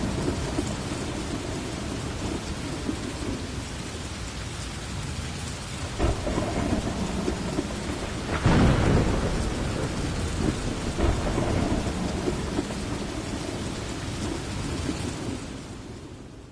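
Heavy rain falling steadily with thunder: a crack of thunder about six seconds in, the loudest clap rolling on about halfway through, and another about eleven seconds in. The sound fades away near the end.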